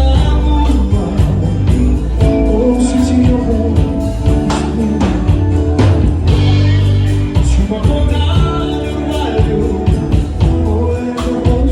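A bolero performed with a singing voice over instrumental accompaniment, a sustained bass and a steady percussion beat.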